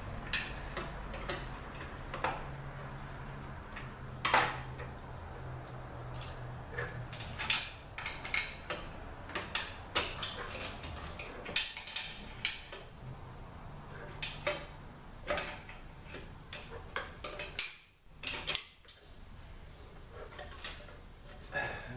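Hand tools clinking and scraping on metal in irregular sharp strikes as a snap ring is pried out of a THM-125C transmission case.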